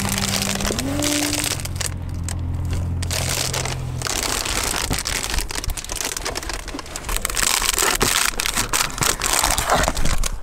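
Nylon sleeping bag rustling and crinkling with many small crackles as someone shifts around in it, busier in the second half.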